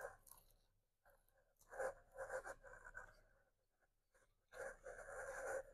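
A person biting into and eating a shredded-beef barbacoa taco. There are three faint bursts of chewing and handling noise, each about a second long: near the start, about two seconds in, and near the end.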